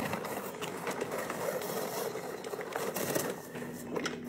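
Hand-cranked rotary apple peeler being turned, its blade shaving the skin off an apple with a steady scraping sound.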